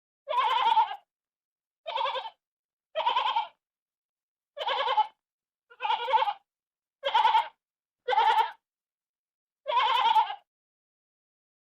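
Sheep bleating: eight short, quavering bleats of about half a second each, with brief silent gaps between them.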